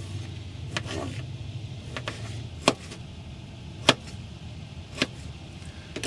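Kitchen knife slicing tomatoes on a plastic cutting board: sharp knocks of the blade hitting the board, about one a second at an uneven pace. A steady low hum runs underneath.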